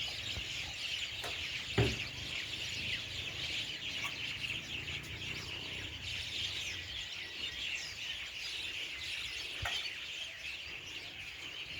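Evening chorus of many birds chirping over one another, a dense unbroken chatter. There is a single low thump about two seconds in.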